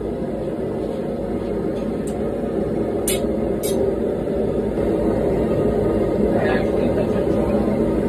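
Gas forge burner running with a steady rushing noise. A few sharp metal clinks come about two to three and a half seconds in.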